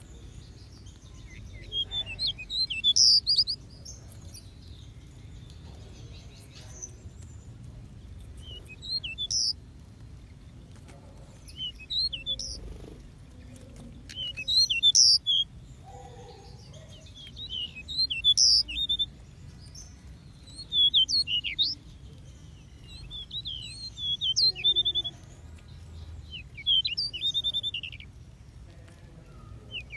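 Small aviary birds chirping in short, quick bursts of high notes, a fresh burst every two to three seconds, over a steady low background hum.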